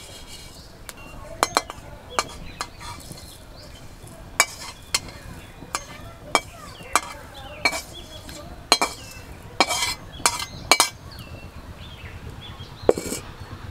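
Metal spatula clinking and scraping against a steel kadai as dry-roasted whole coriander, cumin and fennel seeds are tipped out into a clay bowl: a string of irregular sharp clinks, some ringing briefly.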